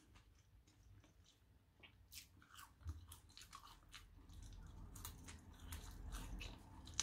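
Faint close-up chewing and mouth sounds of a person eating French fries in curry sauce by hand. Small scattered clicks begin about two seconds in and grow a little louder over the last few seconds.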